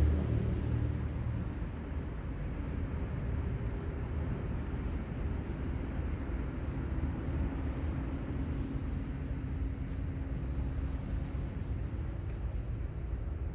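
Distant engine rumble, loudest at the start and easing off over the first two seconds, then a steady low hum. Faint short high chirps recur every second or so.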